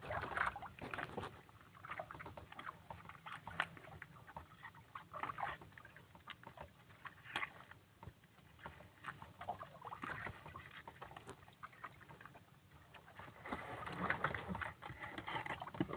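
Irregular rustles and knocks of handling aboard a small fishing boat at sea, over a low steady rumble.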